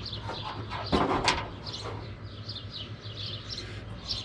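Small birds chirping over and over. A short clatter of metal clicks comes about a second in, from handling a part.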